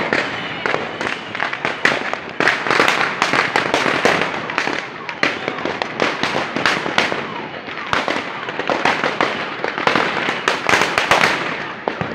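Firecrackers and fireworks going off in a dense barrage of sharp bangs and cracks, many a second, overlapping without a break.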